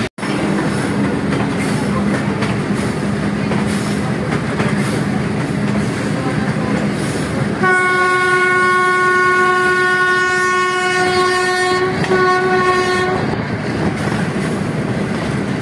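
Passenger train running, heard from inside a coach: a steady rumble of wheels on the track. About halfway through, the PHA-20 diesel locomotive's horn sounds one long blast, then a short one, and the running noise carries on.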